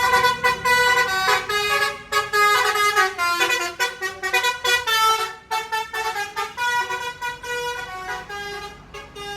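Basuri-type telolet bus horn, a multi-tone air horn, playing a quick run of changing notes like a tune. It fades away over the last couple of seconds.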